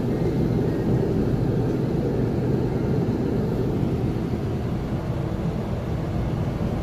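Steady low rumble and hiss inside a moving observation-wheel gondola, with no distinct knocks or changes.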